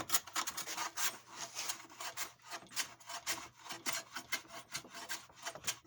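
A hand plane taking quick, repeated strokes across walnut butterfly splines, about three scraping passes a second, shaving the proud keys down toward flush with the chair seat. The blade is set for a fairly thick cut.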